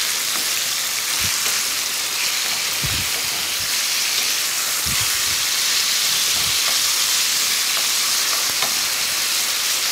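Chicken pieces sizzling in oil in a non-stick frying pan, a steady frying hiss. A wooden spoon stirring them knocks softly against the pan four times.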